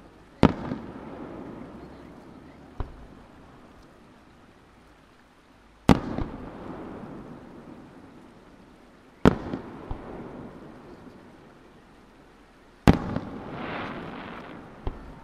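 Aerial firework shells bursting: four loud booms about three and a half seconds apart, each followed by a long rolling echo off the surrounding mountains, with a few fainter pops in between.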